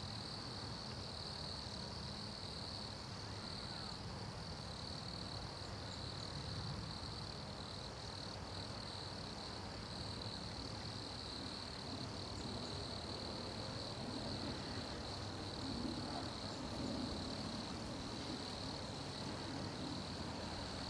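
Chorus of wood crickets (Nemobius sylvestris) singing, a steady high-pitched trill that never breaks. A low rumble grows under it near the end.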